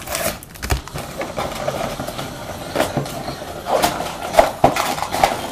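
Cardboard and plastic packaging of a trading card box being handled and opened: irregular rustling, crackling and sharp clicks, busiest near the end.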